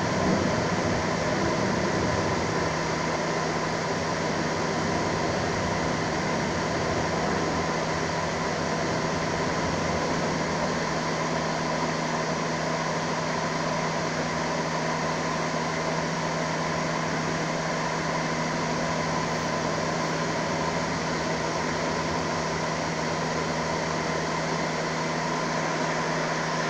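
Steady mechanical hum with a constant hiss, unchanging throughout.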